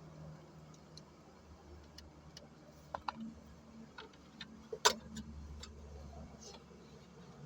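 Scattered clicks and taps from hand tools and parts during work on the car's fuel pump, with two quick clicks about three seconds in and a sharper knock about five seconds in, over a faint low hum.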